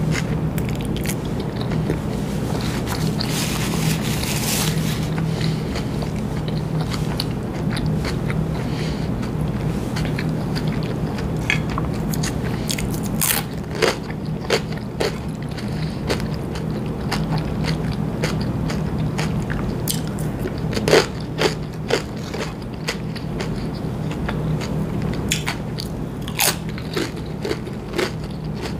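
Close-miked chewing of a deli sub sandwich: wet mouth sounds with sharp crunches and clicks, which come more often in the second half, over a steady low hum.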